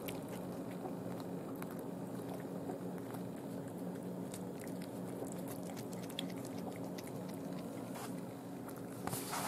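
Domestic cat chewing a raw day-old chick: a run of small, irregular wet crunches and clicks over a steady low hum. A louder short rustle comes near the end.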